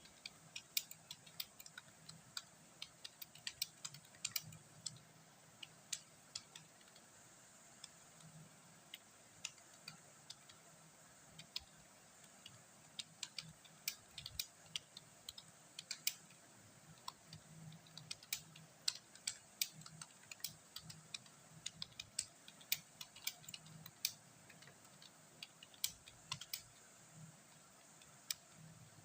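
Typing on a computer keyboard: quick, irregular key clicks, several a second, with short pauses between runs.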